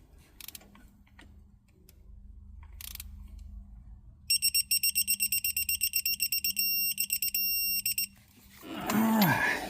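Quinn digital torque wrench beeping, starting about four seconds in: a fast series of electronic beeps that turns into longer steady tones for a few seconds, the signal that the set torque (13 ft-lb) on the spark plug has been reached.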